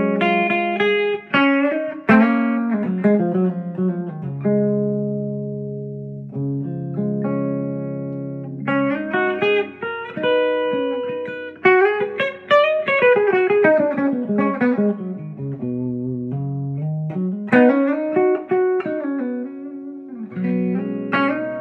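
Gibson Les Paul electric guitar with Bare Knuckle pickups being played through an amp: held chords and notes, with single-note runs climbing and falling in the middle.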